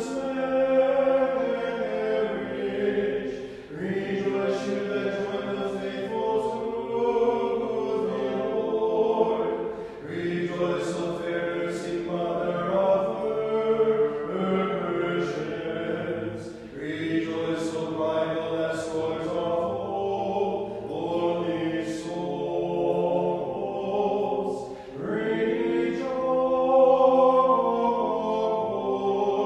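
Unaccompanied Orthodox liturgical chant, sung in phrases of several seconds each with short breaks between them.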